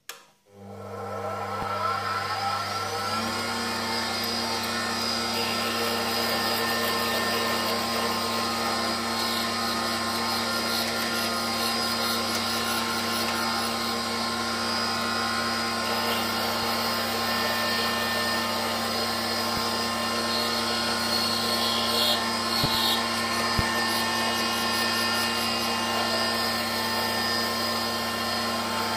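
Small benchtop metal lathe switched on: its motor and drive start, come up to speed over about two seconds, then run steadily with a hum and a whine. A couple of brief knocks sound about two-thirds of the way through.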